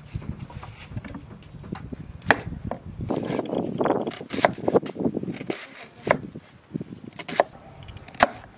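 Chef's knife cutting a peeled onion on a wooden cutting board: crisp crunching through the onion, with a handful of sharp, irregular knocks of the blade on the board, about one a second.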